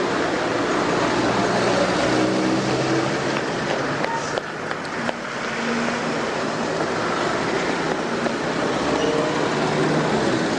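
Concrete mixer truck running steadily during a concrete pour: a dense mechanical noise with an engine note that shifts in pitch now and then.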